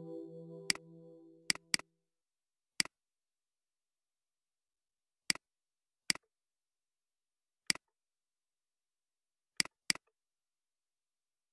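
Computer mouse clicks: nine short, sharp single clicks, irregularly spaced, with dead silence between them. Synth background music fades out in the first two seconds.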